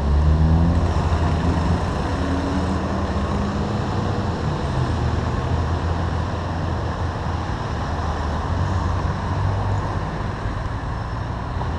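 Street traffic with an engine running under it, a steady low hum. It is loudest about the first second, as a vehicle passes close by.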